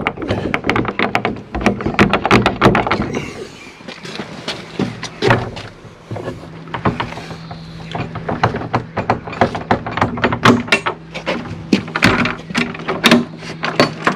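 Tall wooden garden gate being shoved, rattled and worked open: a rapid string of knocks and clatters from the boards and latch. A steady low hum comes in about halfway through.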